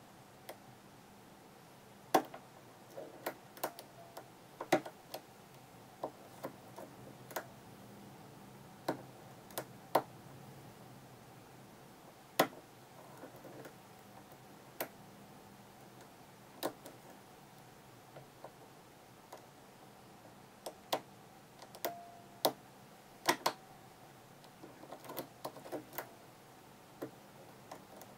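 Irregular sharp clicks of a hook pick and tension wrench working the pins of a Sargent pin-tumbler lock during single-pin picking, some clicks much louder than the rest.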